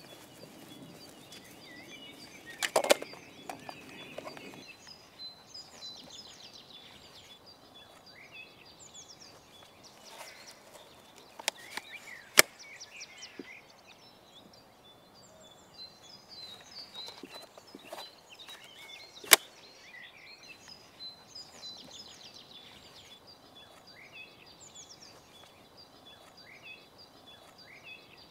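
Birds chirping and trilling in the background. A few sharp plastic clicks from a STIHL forestry harness being handled and adjusted stand out above them: a short cluster about three seconds in, and single louder clicks about twelve and nineteen seconds in.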